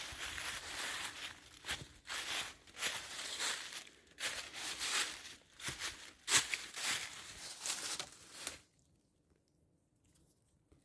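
Footsteps crunching and rustling through a thick layer of dry fallen leaves, irregular and about two a second, stopping about eight and a half seconds in.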